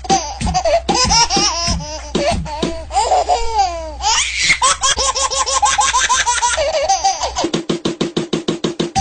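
Baby laughing, edited into a ringtone over background music. Short laugh bursts are cut and repeated, ending in a fast, stuttering run of chopped laughs.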